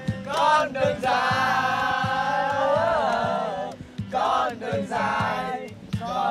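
A group of young men singing along together to a strummed acoustic guitar, the voices holding long notes, with short breaks between lines.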